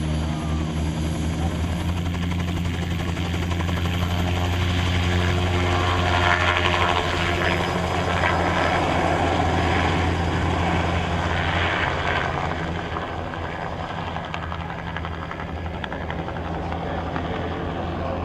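Helicopter overhead, its rotor and engine droning steadily. The noise swells through the middle and eases off somewhat near the end.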